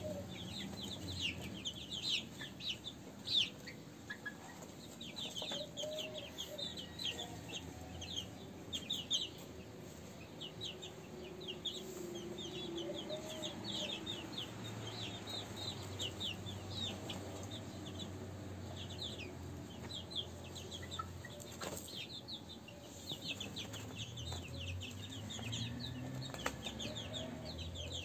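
Caged chickens at a poultry market: soft, occasional clucks under a steady scatter of short, high chirps.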